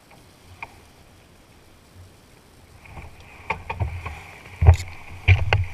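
A small boat pushing through tall, dense marsh grass: quiet at first, then from about three seconds in a run of irregular hollow knocks and thumps on the hull, with grass stalks rustling and scraping against it.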